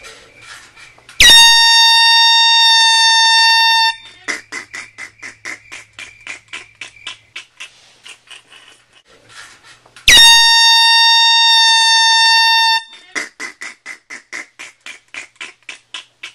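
Air horn blasting twice, each a single steady tone with a sharp start, lasting close to three seconds; the second blast comes about nine seconds after the first.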